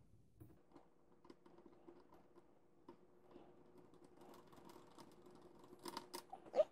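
Faint small clicks and taps of a screwdriver and small screws on a metal drive bracket, sped up threefold, with a few sharper clicks near the end.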